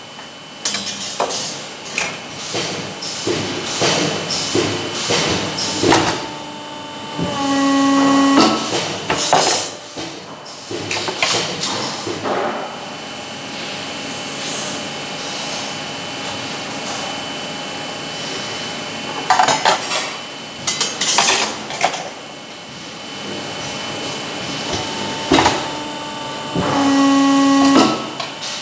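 Hydraulic press brake bending steel wire rods: metal rods clatter and knock against the tooling and bed, and twice a steady pitched whine rises from the machine as the ram makes its stroke. There is a steadier machine hum with fewer knocks in the middle.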